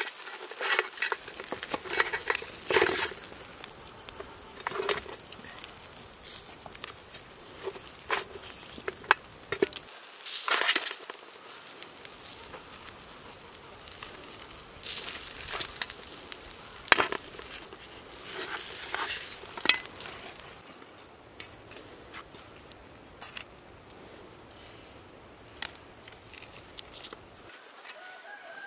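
Grilled lamb chops being pushed off metal skewers with a knife onto an aluminium tray: irregular metal clinks and short scrapes as the meat slides off and the skewers are drawn out.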